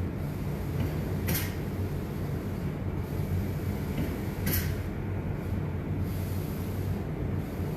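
Steady low hum of spray-finishing equipment, with short hisses from a spray gun about every three seconds as clear finish is sprayed across a piece of furniture.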